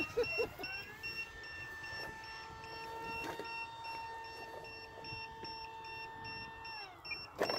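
Distant high whine of an electric RC jet's motor at steady throttle, its pitch dropping about seven seconds in as it is throttled back. A short electronic beep repeats about three times a second throughout.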